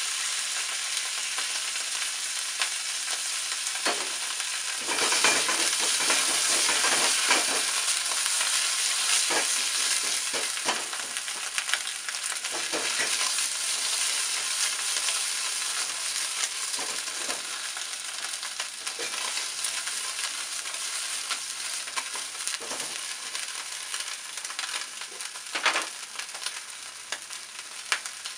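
Sliced mushrooms sizzling in hot oil in a non-stick frying pan on a gas burner, the pan shaken and tossed with short knocks and scrapes. The sizzle grows louder about five seconds in and eases off later, with a sharp knock near the end.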